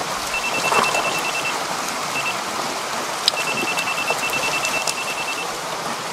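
Live eels sliding and slapping wet into a plastic tub, over a steady hiss of splashing water. A quick high electronic beeping sounds twice, about a second long near the start and about two seconds in the middle, from the digital weighing scale under the tub.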